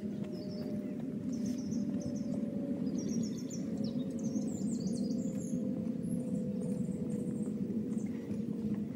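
Small birds chirping in short quick runs over a steady low rumble, with a faint hum that sinks slowly in pitch.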